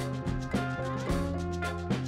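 Background music with a steady drum beat over held bass and instrument notes.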